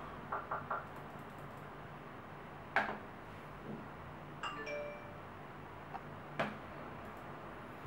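Sharp clicks: three in quick succession near the start, then single ones about three and six and a half seconds in. About four and a half seconds in there is a short electronic chime of several stepped tones. A low steady hum runs underneath.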